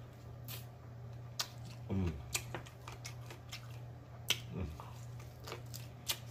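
Close-up eating sounds of fried chicken wings: lip smacking and chewing clicks, with a short hum of pleasure about two seconds in and another about four and a half seconds in. A steady low hum sits underneath.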